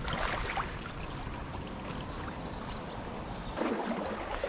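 Shallow river water flowing and rippling steadily, with a louder stretch of water noise near the end.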